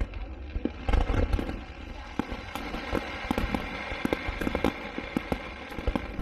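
Aerial fireworks exploding: a deep boom about a second in, then a fast run of sharp crackling reports.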